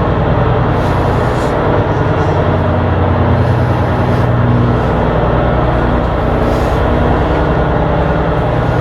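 Ship's diesel engine running steadily, a loud constant drone with faint hissing every few seconds.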